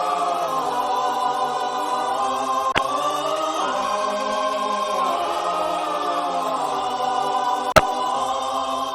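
A choir singing long held chords, with a sharp click about three seconds in and a louder one near the end, then fading out.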